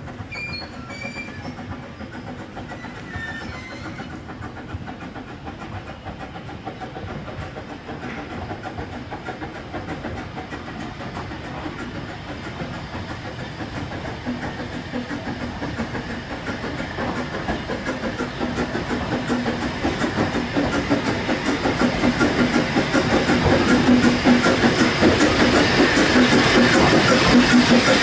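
Narrow-gauge double Fairlie steam locomotive drawing its coaches slowly into a platform, growing steadily louder as it comes close. Its wheels click rapidly over the rail joints, and steam hisses from the cylinder drain cocks.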